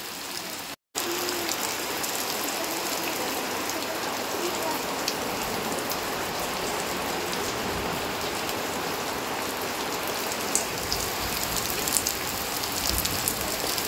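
Heavy rain pouring down, a steady dense hiss with scattered sharper drop sounds. The sound breaks off for an instant about a second in.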